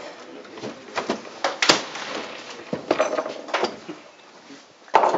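Irregular clicks and knocks of tools and small parts being handled on a wooden bench while a model cannon is worked on, the sharpest click about a second and a half in.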